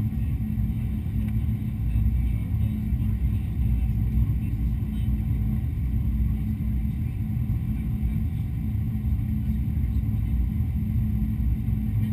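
Steady low rumble inside a Boeing 777-200 airliner's cabin during descent: engine and airflow noise with a constant low hum underneath.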